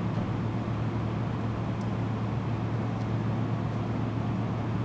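Steady low machine hum with an even rushing noise underneath, and two faint ticks in the middle.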